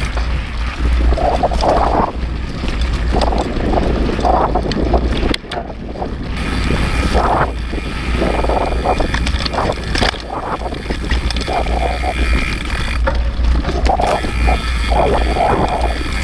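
Wind buffeting the microphone of a camera mounted on a moving mountain bike, a steady low rumble with the bike rattling over a rough trail.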